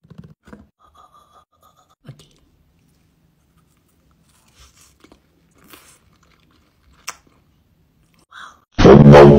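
Faint chewing and crunching as a sugar-coated candy strip is bitten and eaten. Near the end a sudden, very loud, deep droning tone with several stacked pitches cuts in.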